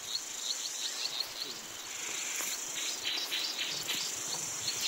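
Insects chirping: a steady high-pitched chorus with short chirps repeated over it.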